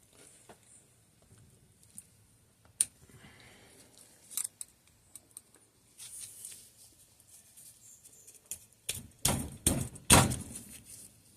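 Small metal tools and rear-shock parts handled on a workbench: scattered light clicks and taps, then three heavy knocks about nine to ten seconds in.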